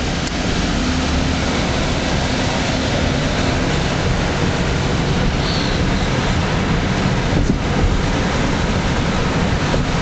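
A steady rush of road and wind noise from a car driving along, with a low engine hum underneath.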